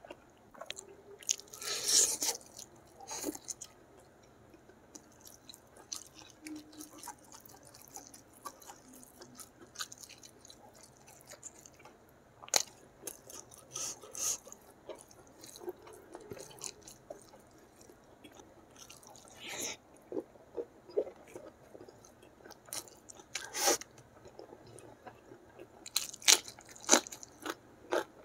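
Close-miked chewing and biting of a mouthful of rice with sambal petai, with scattered crisp crunches and clicks and a few louder crackles.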